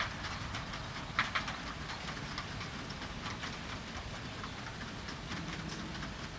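Distant narrow-gauge train running along its track: a faint clatter of scattered irregular clicks over a steady low rumble.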